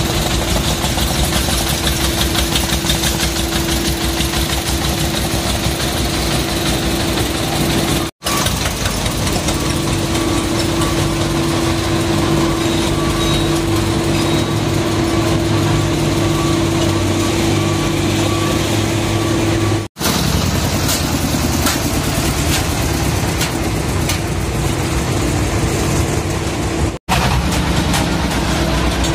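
Single-cylinder diesel engines of homemade ledok trucks running at idle and low speed as they move up to a weighbridge, a steady loud chugging with a constant hum. The sound drops out for an instant three times.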